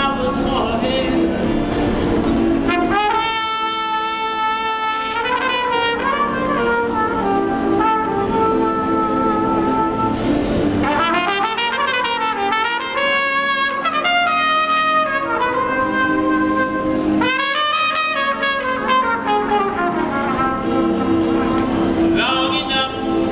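Trumpet melody played one-handed over chords held on an electronic keyboard, with long held notes and some bent notes; a man's singing voice at the start before the trumpet comes in about three seconds in.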